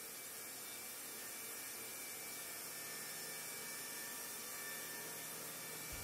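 Faint steady hiss of background ambience with a few thin, steady high tones and no distinct sound events.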